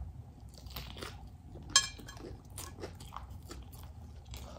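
Close-miked eating: a person bites into a loaded hot dog in its soft bun and chews, with a string of short mouth clicks and one louder, sharper click a little under two seconds in.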